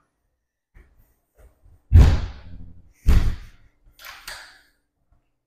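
Two loud thuds about a second apart, each trailing off in a short rumble, followed by two lighter knocks near the end.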